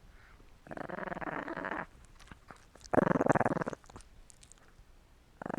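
Small dog growling twice in short rumbling bursts, the second louder, with faint wet licking clicks between them.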